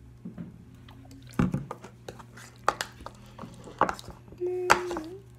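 Metal spoon knocking and scraping in a plastic bowl as it stirs sticky homemade slime being activated with contact solution, with sharp clinks about one and a half seconds in and again near the end.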